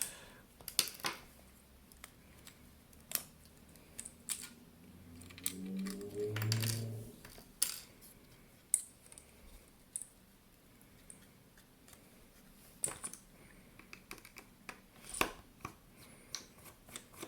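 Scattered clicks and taps of small plastic and metal parts as a cheap digital camera's casing is handled and worked at during disassembly, with a brief low hum about six seconds in.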